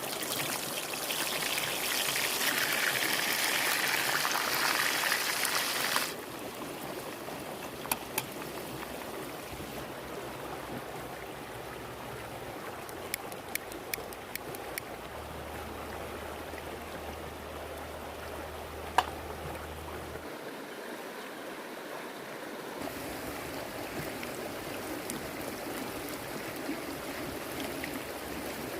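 A stream of water running steadily. The first six seconds are louder and hissier and stop abruptly, and a few sharp clicks stand out later.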